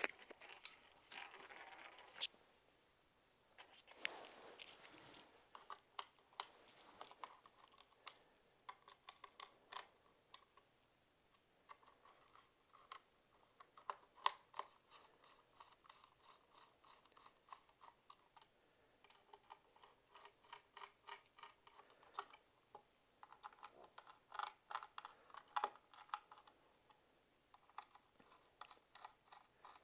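Faint scratchy clicks and rasps of a small screwdriver turning small screws into a white ABS plastic case, coming in short bursts as each screw is tightened.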